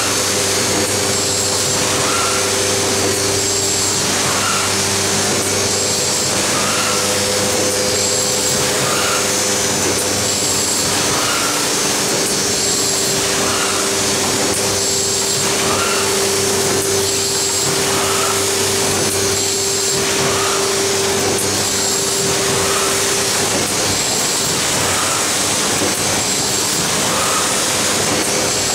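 Kolbus DA 240 casemaker running in production: a steady mechanical whir and hiss with a steady hum, and a beat that repeats about every one and a half seconds as the machine cycles.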